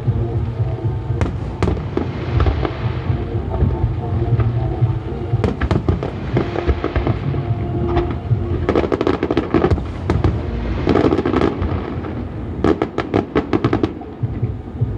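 Fireworks display: sharp bangs over a continuous low rumble, with two stretches of rapid crackling, one about nine seconds in and another near the end. Music plays underneath.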